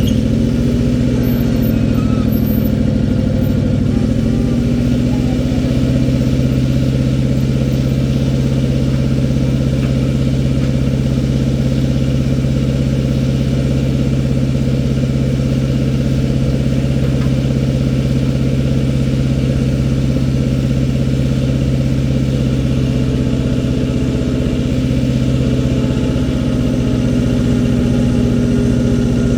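Old International backhoe's engine running steadily, its pitch sagging slightly a few seconds in and falling near the end.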